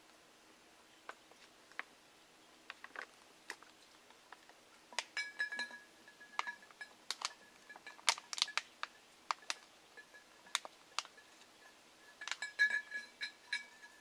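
Crinkling and sharp clicking of a soft plastic water pouch and bottle being handled, with scattered clicks at first that grow much busier about five seconds in. A thin, high, steady tone comes and goes alongside the crinkling.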